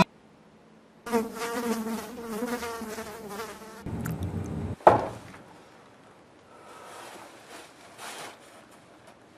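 A buzz like a flying insect, wavering up and down in pitch, for about three seconds. Then a low rumble ends in a single sharp knock about five seconds in, followed by faint scattered noises.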